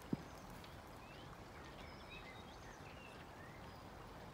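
Faint outdoor ambience: a low steady hiss with scattered faint bird chirps, and one brief low thump just after the start.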